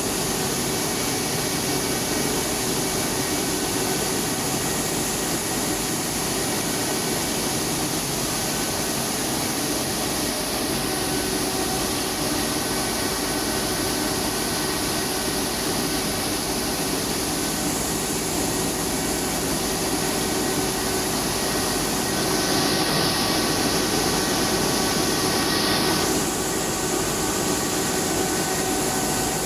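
Rice mill plant machinery running steadily, a dense mechanical hum and hiss with faint steady tones from its motors and milling units. A louder hiss comes in for about four seconds some three-quarters of the way through.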